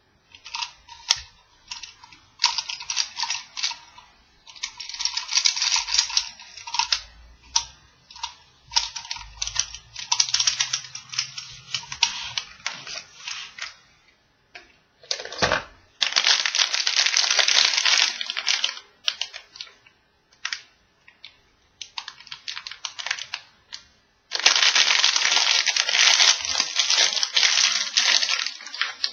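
Clear plastic toy wrappers being crinkled and torn open by hand: stretches of crackling with sharp clicks, stopping and starting throughout.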